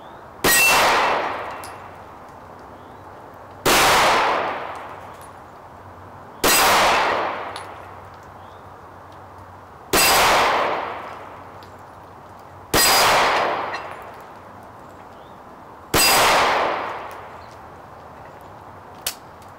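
Six single pistol shots from a 1906 American Eagle commercial Luger in 9mm, spaced roughly three seconds apart, each trailing off over about a second. Near the end comes a single light click as the gun fails to fire, which the shooter puts down to the old magazine's follower sticking so that no round fed.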